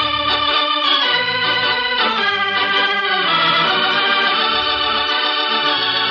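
Organ music playing a musical bridge between radio-drama scenes: held chords that change every second or so over a low bass line.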